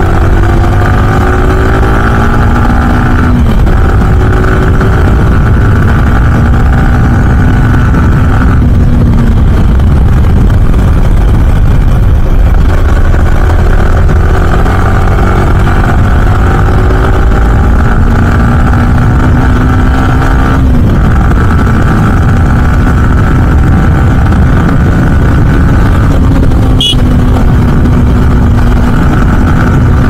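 Yamaha R15M's single-cylinder engine pulling through the gears under acceleration: its pitch climbs, drops at an upshift, and climbs again several times, then holds a steadier note near the end. A steady low rushing noise lies under it throughout.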